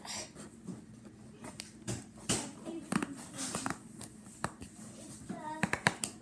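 Hands opening a cardboard box: a run of irregular knocks, clicks and rustles from the box and its packaging.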